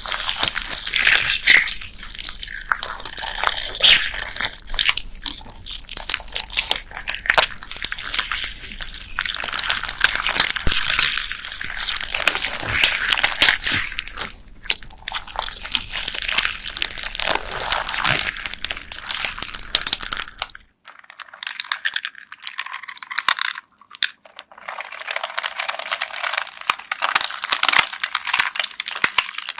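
Homemade slime packed with plastic beads being squeezed and pressed by hand: dense, crunchy crackling and clicking of the beads in the slime. About two-thirds of the way through the sound changes abruptly to a lighter clicking with the low background gone.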